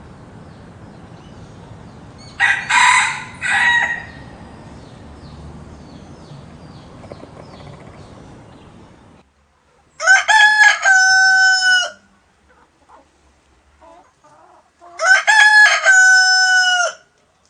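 A rooster crowing twice, each crow about two seconds long and about five seconds apart. Before that, two short harsh calls over a low steady hum.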